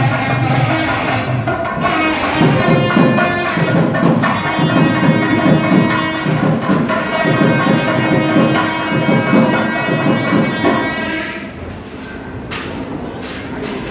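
Music: a sustained melody over repeated drum strokes, which fades away about eleven seconds in, leaving a quieter background.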